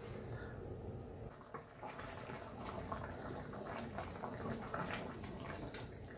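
Wooden spoon stirring pork simmering in thick coconut-milk sauce in a stainless steel pan: faint wet bubbling and stirring sounds with small clicks.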